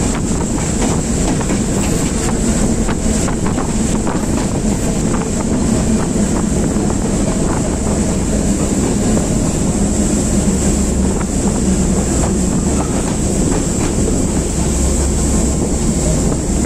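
A Class M2c diesel-electric locomotive running at speed, heard from its open cab window: a steady engine drone with irregular clicking and clattering from the wheels on the track, and wind rushing past.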